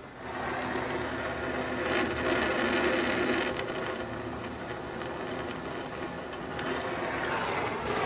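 Oxy-fuel brazing torch flame hissing steadily while it heats the end of a copper refrigerator line to braze it shut.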